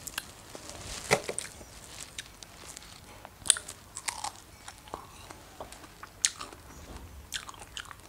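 A person biting into and chewing fresh strawberries close to the microphone: wet mouth sounds with sharp clicks scattered through, the loudest about a second in, again at about three and a half seconds and at about six seconds.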